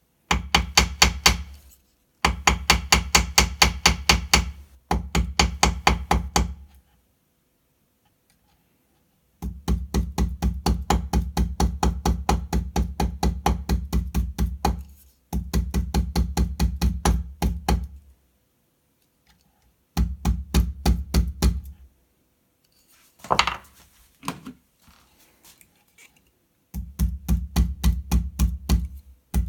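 Ball-peen hammer striking a Swiss Army knife blade on a small steel block: the bent blade is being straightened. The strikes come quickly and evenly, about five or six a second, in runs of a few seconds with short pauses between. A brief noise of another kind comes about three quarters of the way through.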